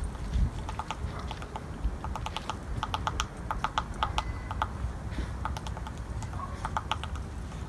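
A woodpecker tapping on a tree branch: short runs of quick, sharp taps, several a second, broken by brief pauses.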